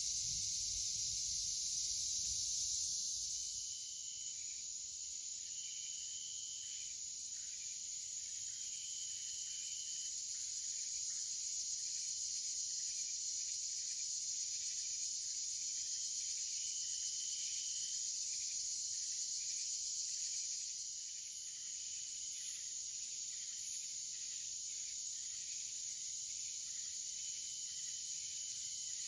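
Dusk insect chorus: a steady high-pitched hiss of crickets, with a clearer trill of about a second repeating every few seconds over it. A low rumble dies away about three seconds in.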